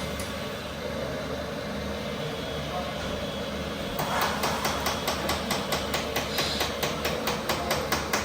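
Small electric motors and gearing of RC construction machines running with a steady hum, joined about four seconds in by an even, rapid clacking of about five strikes a second.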